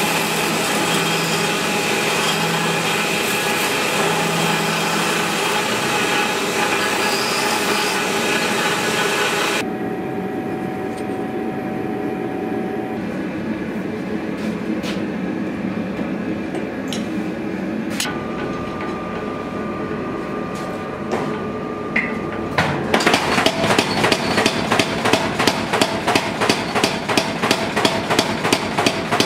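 A power tool runs steadily for about ten seconds. Then comes quieter workshop noise with a few sharp clicks. Near the end, rapid, evenly spaced hammer blows on metal start, about three to four a second.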